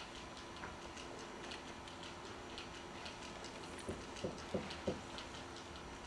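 Steady light ticking, about two ticks a second, over a faint hum, with four dull knocks about four seconds in.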